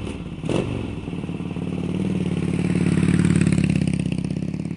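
Motorcycle engine running under throttle, growing louder to a peak about three seconds in, then easing off, with a short sharp crack about half a second in.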